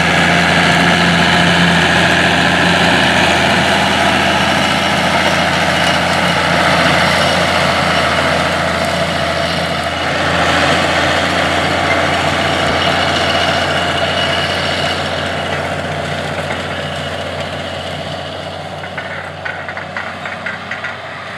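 Allis-Chalmers 200 tractor's six-cylinder diesel engine running steadily under load as it pulls a tandem disc through the field. The sound fades over the last few seconds as the tractor moves away.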